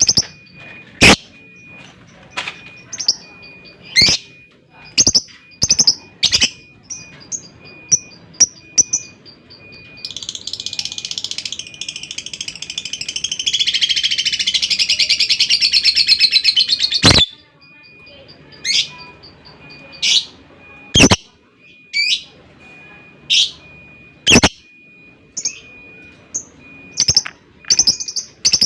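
Lovebird calling: sharp single chirps about a second apart, broken about ten seconds in by a long, very fast rattling chatter (ngekek) lasting some seven seconds, after which the chirps resume.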